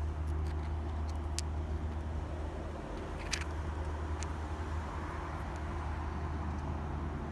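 Steady low outdoor rumble, with a few light clicks and one sharper click a little past the middle as the two split halves of a stone are handled against each other.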